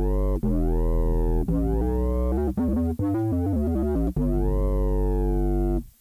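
Korg microKORG synthesizer playing a drum-and-bass preset: held bass-heavy notes whose tone brightens and then darkens on each note, a quick run of short notes in the middle, then a long held note that stops suddenly near the end.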